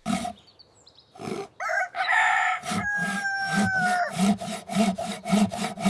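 A held call of about a second, like a rooster's crow, falling slightly in pitch. Then rhythmic scraping strokes, like sawing wood, about three a second.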